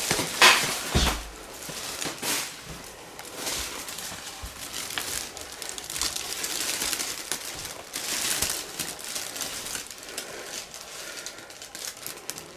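Rustling and crinkling of a carried bag or bundle, with footsteps and small handling knocks on a wooden floor. Two louder knocks come about half a second and a second in.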